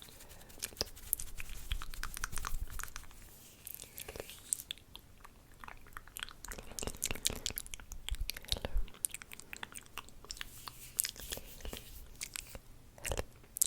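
Close-miked ASMR mouth sounds: many short wet clicks and smacks at irregular spacing.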